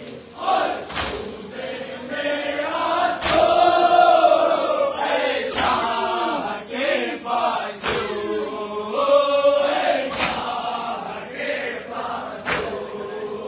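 A crowd of men chanting a nauha (Shia lament) together, with their hands striking their chests in unison about every two seconds in matam.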